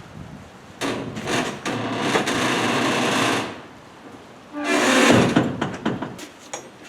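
Rusted steel shipping container door being worked: a scraping, creaking stretch with small clicks, then after a short pause a louder creak with a pitched metal squeal from the corroded hinges and fittings.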